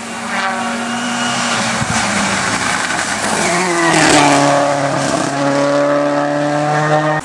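Hillclimb race car engine running hard at high revs. Its pitch dips sharply about four seconds in, where it is loudest, then holds steady.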